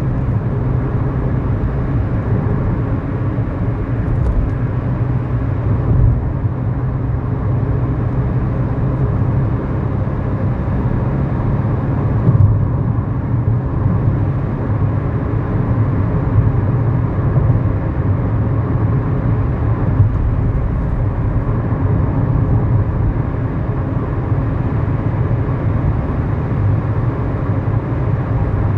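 In-cabin sound of a 2011 Kia Morning's 999 cc four-cylinder SOHC engine with tyre and road noise while driving, a steady low drone with a few small brief bumps.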